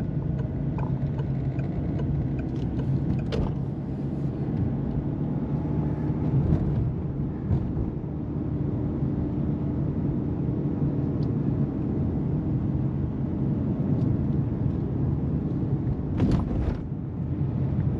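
A car driving slowly, heard from inside the cabin: a steady low engine hum with tyre and road rumble. There is a brief knock about three seconds in and a couple more near the end.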